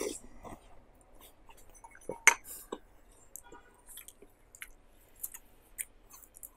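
A person eating: a sip from a spoon at the start, then biting and chewing a crispy fried dough stick, with scattered crunchy clicks, the loudest a sharp crack a little over two seconds in.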